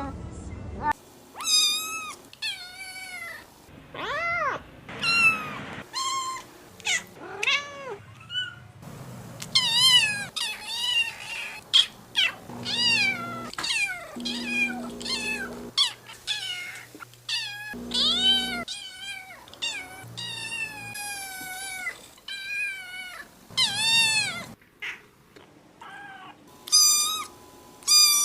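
Domestic cats meowing, one call after another at about one a second, each a rising-then-falling meow of its own pitch and length, spliced together from different recordings.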